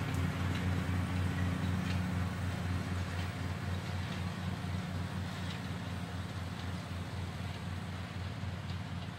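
An engine running steadily with a low, slightly pulsing hum.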